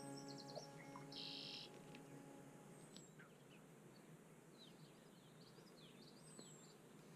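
Faint birds chirping, with short high calls and quick down-slurred notes, over a quiet outdoor background. A held musical chord fades out in the first couple of seconds.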